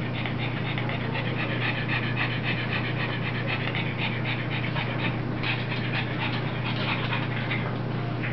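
Pug panting quickly and steadily, over a steady low hum.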